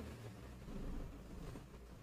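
Quiet room tone: a faint low hum and hiss, with no distinct event.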